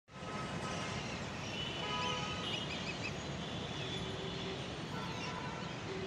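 Steady hum of city traffic at dusk, with a short run of quick high bird chirps about two and a half seconds in and a few brief held tones just before it.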